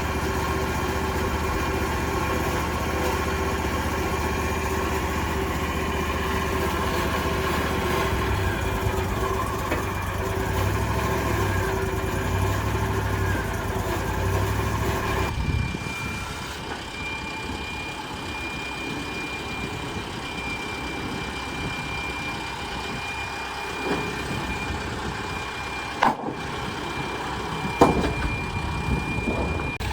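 An engine idling steadily, which stops abruptly about halfway through. What remains is a faint, steady, high-pitched squeal from a saw cutting on a power line across the road, with a few sharp knocks near the end.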